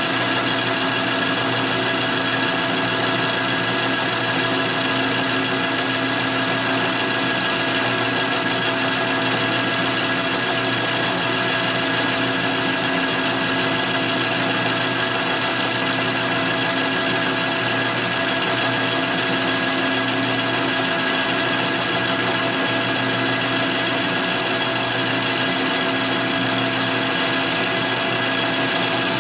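Metal lathe running steadily under power feed, its tool taking a light cut of a few thousandths along a hot-rolled steel bar. It is an even machine hum with several steady tones that don't change.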